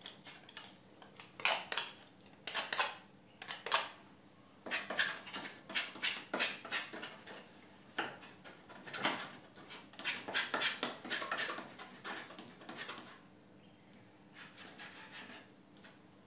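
Metal palette knife scraping and dabbing thick paint onto a canvas in a run of short, quick strokes, which come in groups and grow fainter near the end.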